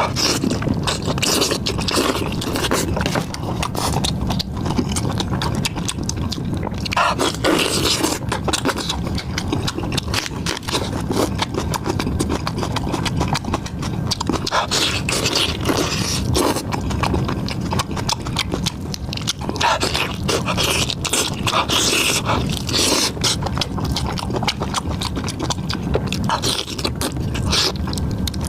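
Close-miked eating: continuous chewing and biting, with dense, irregular crunchy clicks and crackles.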